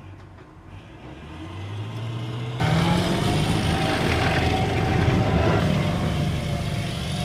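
Tracked amphibious assault vehicle (AAV7) running, its diesel engine growing louder over the first couple of seconds. About two and a half seconds in it turns suddenly much louder and closer, a dense engine sound with a steady whine above it.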